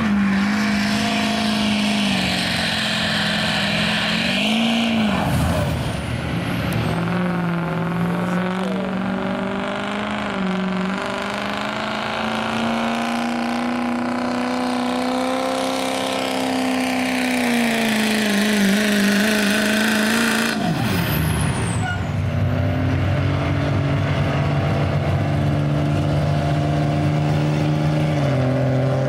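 Diesel pickup truck engines working hard under steady heavy load as each truck drags a weight-transfer pulling sled: a Chevrolet Silverado, then a Ford Super Duty, then a Dodge Ram. Each is a steady drone that drifts a little in pitch. The sound changes abruptly about five seconds in and again about twenty seconds in, as one truck's run gives way to the next.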